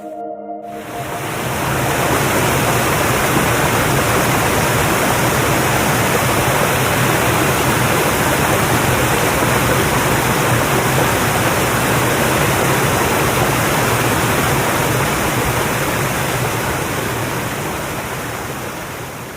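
Waterfall pouring into a plunge pool: a steady, loud rush of falling water, recorded binaurally. It fades in over the first couple of seconds and fades out near the end.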